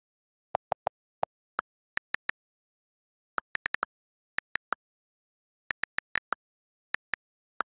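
iPhone on-screen keyboard click sounds while a text message is typed: about two dozen short, sharp ticks in quick clusters with dead silence between them, the first few a little lower in pitch than the rest.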